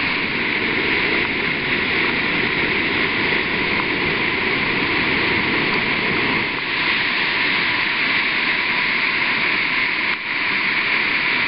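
Lefthand Creek in flood: fast, high floodwater rushing steadily.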